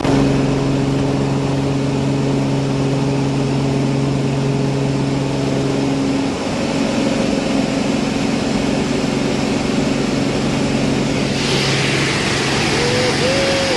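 Propeller engine of a skydiving jump plane droning steadily, its pitch shifting slightly about six seconds in. A rushing wind hiss rises over it about eleven and a half seconds in.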